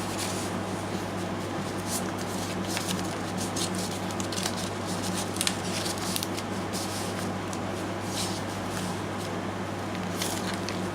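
Paper rustling and crinkling as a handmade journal's pages, tags and envelopes are handled and turned, with a steady low hum underneath.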